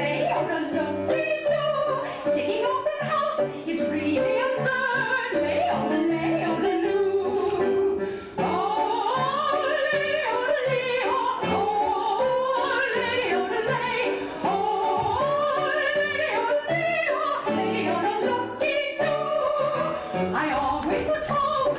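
Music: a voice singing in a classical, operatic style over instrumental accompaniment.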